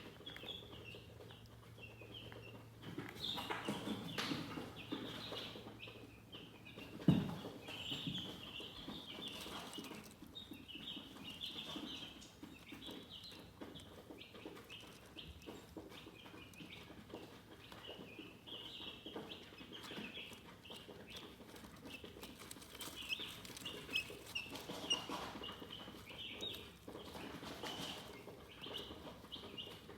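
Chickens chirping: a near-continuous stream of short, high chirps, with a single sharp knock about seven seconds in.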